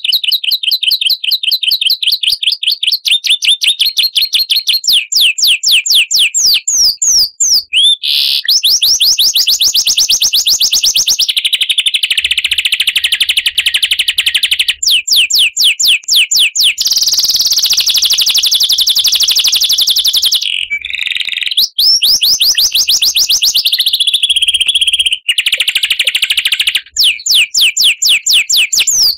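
Songbird song in rapid-fire repeated notes, many per second, alternating with dense continuous trills and short breaks, with all the energy high in pitch.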